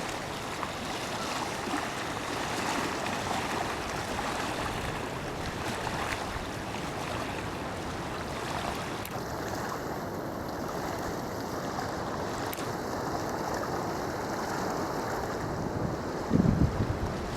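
Choppy reservoir water, small wind-driven waves lapping and splashing steadily, with wind blowing across the microphone; a stronger gust buffets the microphone near the end.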